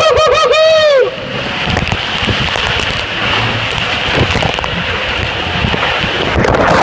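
A rider's wavering yell in the first second, then rushing water and the body sliding down an enclosed tube water slide, growing louder near the end as the rider shoots out of the tube in a spray of water.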